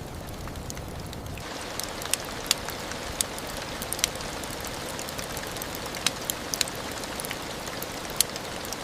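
Steady rain falling, with scattered single drops striking close by. About a second and a half in, the low rumble drops out and the rain hiss turns brighter.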